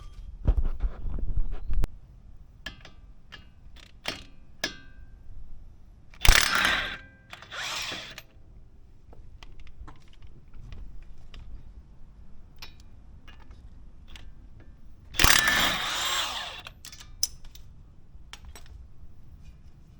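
Car-repair tool work: three short bursts of a power tool, the last one longer, amid scattered metallic clinks and knocks of hand tools.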